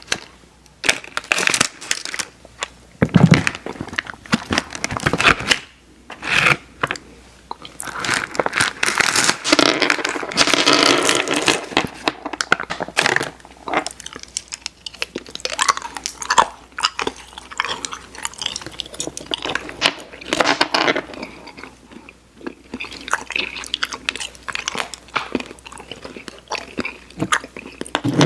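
Close-miked mouth sounds of Airheads candy being bitten and chewed, with many short, irregular clicks and crunches.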